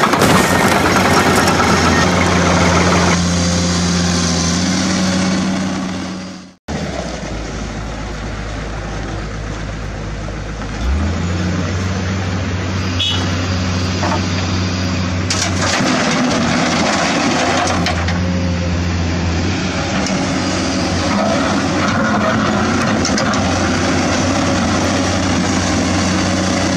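Engine noise with a steady low hum that cuts out abruptly about six and a half seconds in. Then a Caterpillar hydraulic excavator's diesel engine runs steadily as it digs and loads, its note stepping up about eleven seconds in and staying there.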